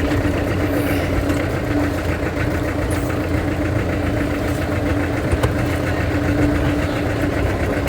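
Vehicle engine running steadily, a constant low rumble with a steady hum over it.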